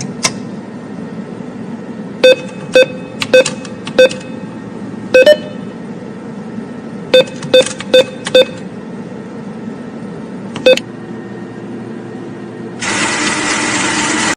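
A series of short, identical electronic beeps, about ten in irregular groups, over a steady low hum. A loud steady hiss comes in near the end.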